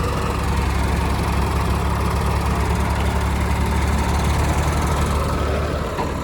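Tractor diesel engine idling steadily, a low hum with a fine, even pulse.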